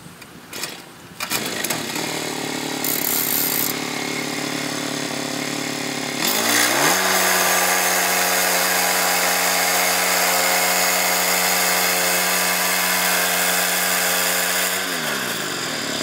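Petrol engine of a Woodland Mills HM122 portable bandsaw mill starting about a second in and idling, then revving up to full speed about six seconds in to drive the band blade, running steady, and dropping back in pitch near the end.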